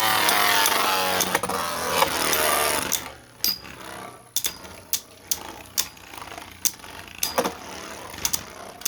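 Beyblade spinning tops, one of them 3D-printed, whirring loudly in the stadium right after launch. The whirr falls in pitch as they slow. After about three seconds it drops off to a quieter spin, broken by sharp clicks about once a second as the tops knock together.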